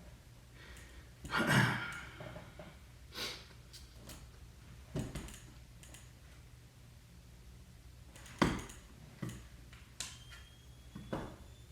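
Clicks and knocks from handling a Mamiya Universal camera and Vivitar 283 flash, with a loud sigh about a second and a half in. Near the end a faint high whine starts and rises slowly in pitch: the flash unit charging.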